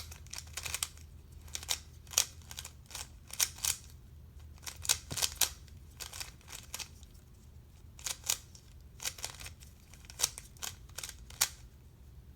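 Plastic Rubik's cube being turned by hand, its layers clicking and clacking in quick irregular flurries with short pauses between turns.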